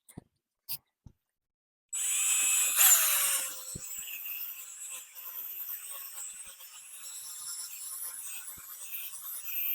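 Electric drill driving a 1500-grit sanding pad across a plastic headlight lens. It starts about two seconds in with a loud burst, its whine drops in pitch and then holds steady under a scratchy sanding hiss while it removes the oxidation.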